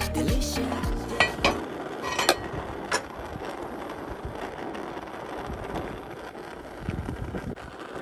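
Okra stew boiling hard in an enamelled cast-iron pot, with a steady bubbling hiss as a spatula stirs it. Background music ends in the first second and a half, and a few sharp clinks of metal on the pot come in the first three seconds.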